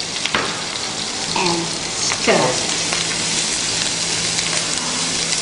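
Sliced mushrooms sizzling steadily in hot oil with curry leaves and garlic in an electric frying pan.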